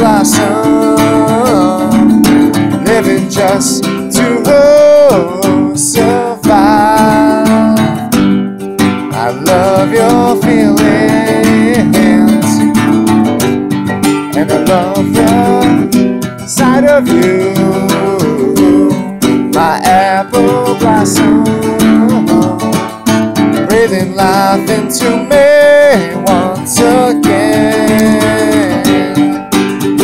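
Acoustic guitar strummed steadily, with a man singing a melody over it.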